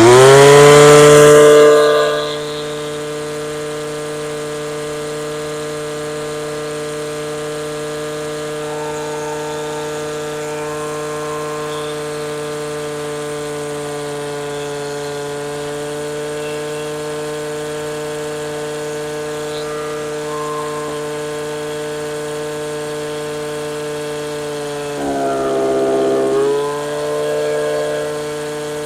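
Stihl FS55 RC string trimmer's small two-stroke engine running. It is held at high throttle for about the first two seconds, then settles to a steady idle. Near the end its note dips and swells for a second or so before settling back. It is warming up and burning off the excess fuel-oil mix that flooded it and made it smoke.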